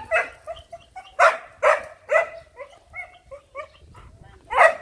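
Puppies yelping and yapping: many short, high-pitched barks in quick succession, the loudest about a second in and again near the end.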